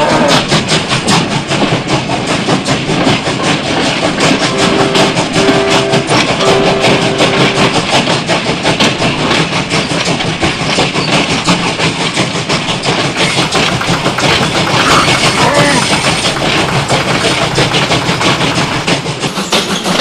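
Battery-powered toy train running on plastic track: a fast, continuous clatter, with three short toots about five seconds in.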